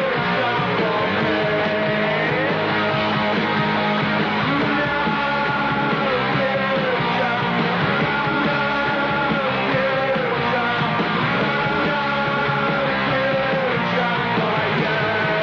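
Punk rock music playing steadily, a full band with a wavering sung melody over it.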